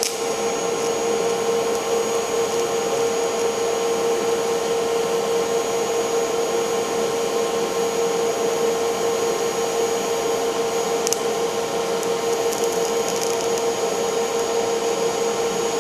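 TIG welding arc burning steadily on steel: an even hiss with a steady buzzing hum.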